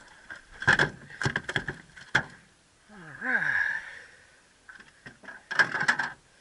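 Sharp knocks and rattles on an aluminum jon boat as a freshly landed redfish flops about on the deck, in several clusters with a metallic ring, the loudest near the end. A short hum-like voice sound comes in the middle.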